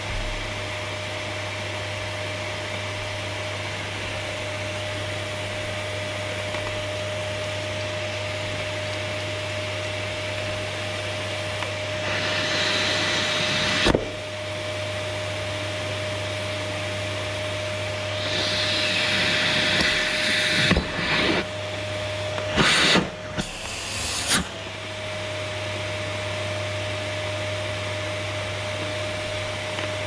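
Canister vacuum cleaner running steadily with a constant motor whine and hum. Between about 12 and 25 seconds there are a few louder rushes of hissing air and several sharp knocks, and near the end of that stretch the motor pitch dips briefly before settling back.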